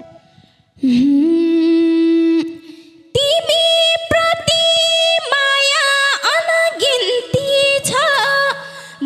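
Nepali dohori vocal: the band's music stops, and after a short pause a woman's voice sings slow, wordless held notes with ornamented bends and slides, with no drums beneath.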